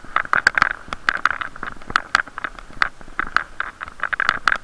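Irregular clicks and knocks over a muffled hiss: a camera sealed in a waterproof case being jostled on a moving bicycle, which spoils the recorded sound.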